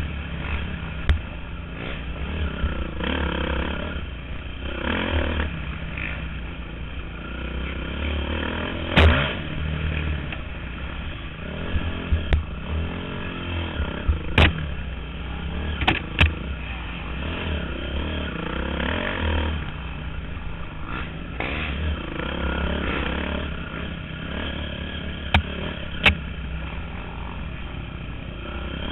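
Dirt bike engine revving up and down as it is ridden hard along a bumpy trail, heard from on board, with a strong low rumble and several sharp knocks, the loudest about nine and fourteen seconds in.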